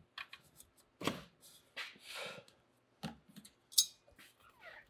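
Hands and tools handling a stainless aftermarket exhaust under the car: scattered light knocks and clicks, a duller knock about a second in, and a sharp metallic clink near four seconds.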